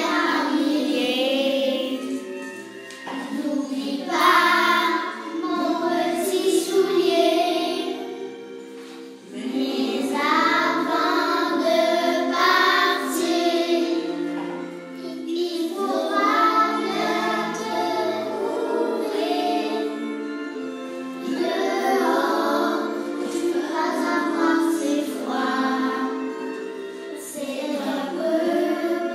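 A group of young children singing a French Christmas song together, with musical accompaniment underneath.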